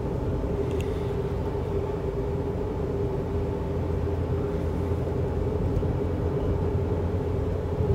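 Steady tyre and engine noise heard inside the cabin of a Lifan X60 SUV cruising at highway speed: a low rumble with a steady hum over it.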